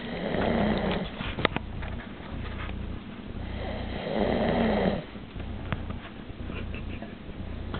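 A sleeper snoring: two long snores, one at the start and one about four seconds in, with a sharp click between them.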